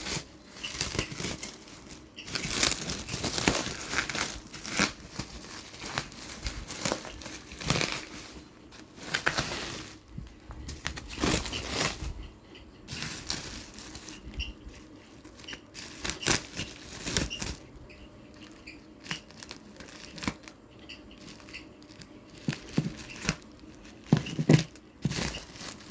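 Bubble-wrap packaging on a parcel being pulled and torn open by hand: irregular crinkling and ripping, busier in the first half.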